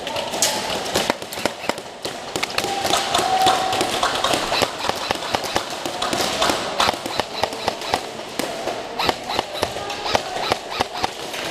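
Airsoft gunfire in an indoor arena: many sharp, irregular snaps of shots and BBs striking walls and cover, some in quick strings, over a steady background din.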